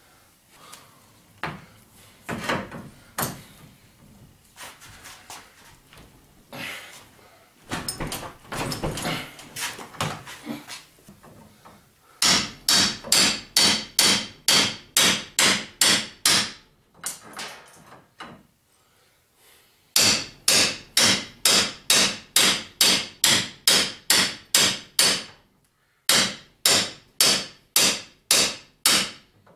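A hammer beating on the handle of a wrench, metal on metal, to drive a seized bolt on a truck camper's roof-lift mount; the bolt is wedged because the frame around it is deformed. Scattered clanks of the tools come first, then the blows fall in three fast runs of about two and a half a second, with short pauses between.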